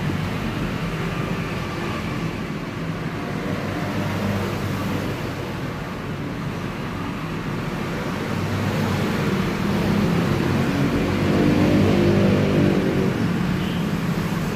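Steady hum of engine and road traffic. One engine grows louder from about nine seconds in and fades again near the end.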